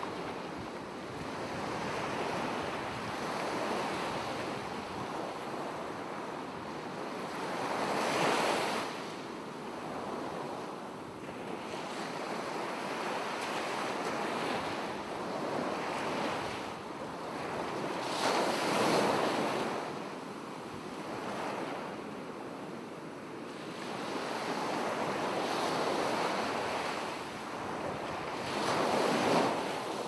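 Ocean surf: waves breaking and washing in as a steady rushing, with three louder surges about ten seconds apart.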